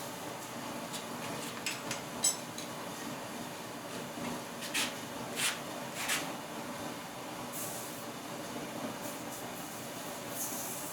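Gas forge running steadily on one burner at turned-down gas pressure. A few sharp clicks about two seconds in, three short sharp hits around the middle, and two brief high hisses later sound over it.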